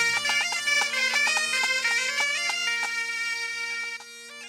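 Bagpipe music: a steady drone under a quick, ornamented melody, dropping away sharply near the end.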